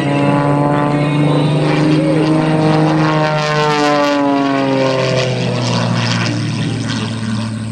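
Super Chipmunk aerobatic plane's piston engine and propeller droning in flight, its pitch sliding down a little between about three and five seconds in.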